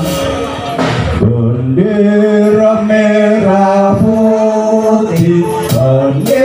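Kubro siswo dance accompaniment: music with chant-like singing over long held notes, and a few sharp drum strokes near the end.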